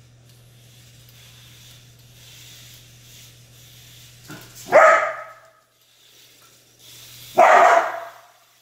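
Aussiedoodle dog barking twice in play, about two and a half seconds apart, the second bark a little longer.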